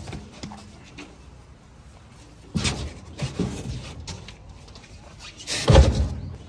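Heavy rubber truck tyres thudding as they are dropped and stacked: a couple of knocks about two and a half seconds in, then a louder, deeper thump near the end.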